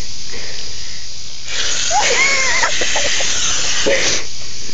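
Water from a garden hose spraying out in a hissing, splattering rush for about two and a half seconds, with a girl's high voice over it.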